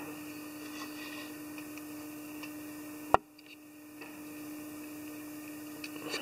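Quiet room tone with a steady electrical hum and hiss, broken by one sharp click about three seconds in.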